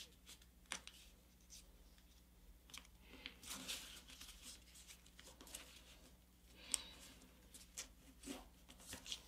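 Faint rustling and crinkling of paper as fingers fold and crease the winglet of a paper airplane, with scattered soft clicks of the creases being pressed in.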